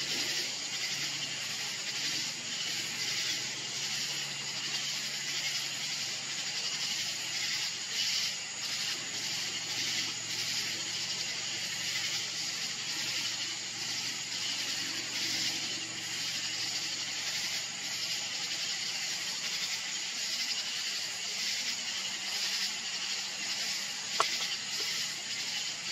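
Steady high-pitched hiss with a faint pulsing to it and a low hum underneath, broken by a single sharp click near the end.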